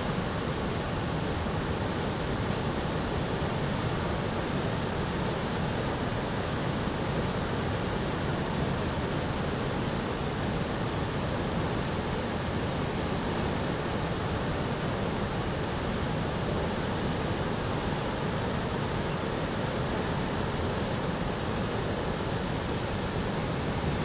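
The Tietê River in flood after heavy rains, its white water rushing over rocky rapids and falls as a steady, unbroken noise.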